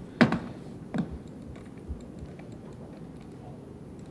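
Faint, scattered light clicks of a computer mouse and keyboard at a CAD workstation. Two short vocal sounds come near the start.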